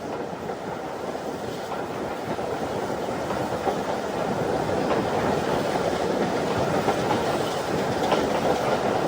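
Passenger train running along the track, heard from aboard: a steady rumble of wheels on rail with the clickety-clack of rail joints, growing gradually louder.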